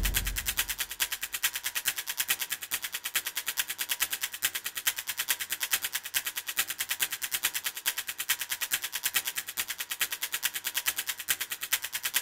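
A quiet break in the background music: a fast, even ticking pulse over a faint held tone.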